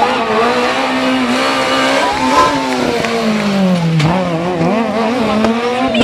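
Rally car engine running at high revs through a tarmac corner, its note rising and falling with the throttle, dipping about four seconds in and climbing again, with tyres squealing as the car slides.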